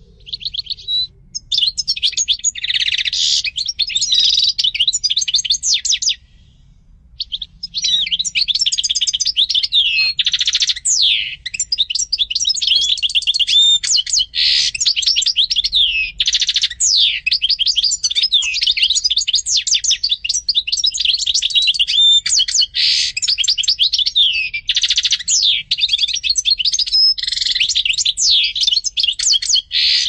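European goldfinch singing a long, fast song of rapid chirps, trills and quick falling notes, with a pause of about a second some six seconds in.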